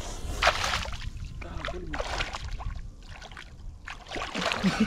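Shallow river water splashing and sloshing in a few bursts around a wading man's feet as he moves them to shake off a crab that has bitten his foot.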